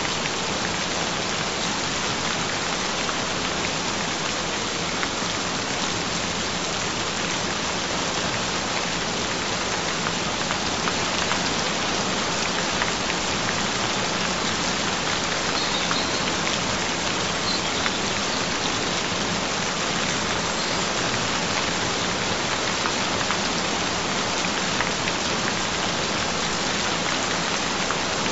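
Steady rain falling, an even, continuous hiss with no let-up.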